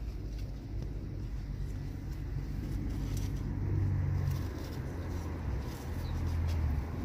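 Low, steady engine-like rumble, swelling about halfway through and again near the end, with a few faint light ticks over it.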